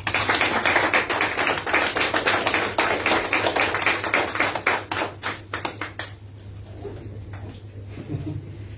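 A small audience applauding: dense clapping that thins out to a few scattered claps and dies away about six seconds in.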